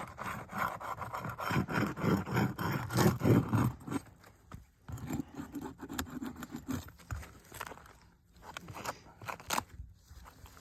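Nails being worked out of asphalt roof shingles: repeated scraping and sharp clicks of a tool against the shingles and nails. It is dense and loud for the first few seconds, then sparser and quieter.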